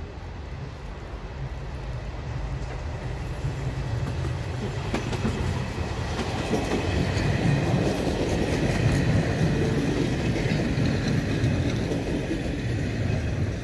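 Passenger train running past on a track across the yard: a rumble of wheels on rails that builds to its loudest about halfway through and then fades as the train moves on, with faint high tones above it.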